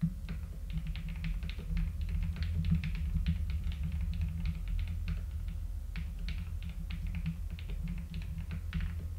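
Typing on a computer keyboard: a fast, irregular run of keystroke clicks, with short pauses between bursts.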